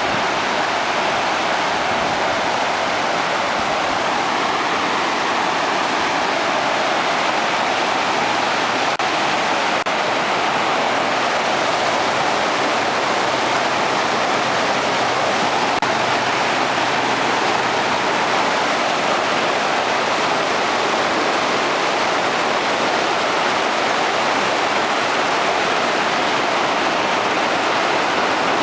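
Steady, loud rush of white water on the Rivière du Nord, falling water with no breaks or changes.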